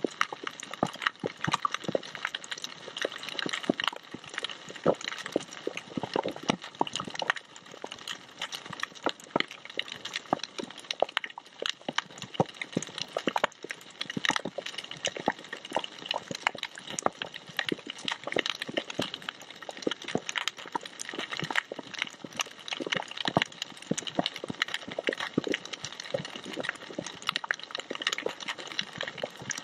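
Underwater crackling of a tropical coral reef: a dense, irregular stream of sharp clicks, the snapping of shrimp among the corals.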